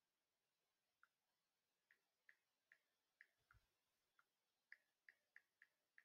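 Near silence with faint, short clicks at irregular intervals, about a dozen, coming closer together in the second half, and one soft low thump around the middle.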